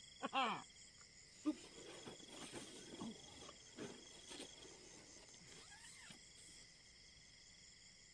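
Night insects, crickets among them, chirring steadily and faintly, with soft scattered rustling and small knocks during the first few seconds.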